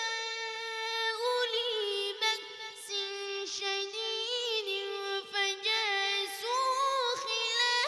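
A single high voice chanting Quran recitation in the melodic tajweed style. It holds long, steady notes with ornamented turns between them, and breaks off briefly between phrases.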